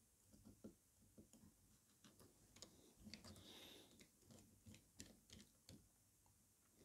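Faint, irregular light clicks and small creaks from a MacBook Pro A1708 being handled as its lid is worked, the test for the cracking noise from the antenna plastic rubbing against the case near the hinge.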